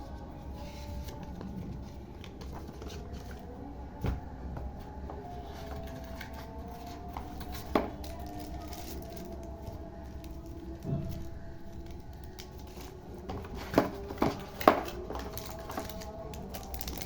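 Scattered knocks and clicks from a keyboard and its packaging being handled: single knocks spaced a few seconds apart, then three sharper ones in quick succession near the end.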